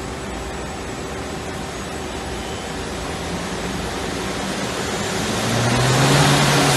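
LT-8 CNC lathe running while turning: a steady machine hum and hiss that swells louder over the last couple of seconds as a low tone comes in.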